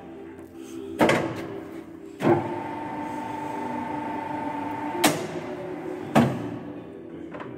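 Colchester Student gap-bed lathe: its headstock levers clunk sharply four times over a steady motor hum. Between the second and third clunks the spindle gearing runs for about three seconds with a steady whine, starting and stopping with those clunks.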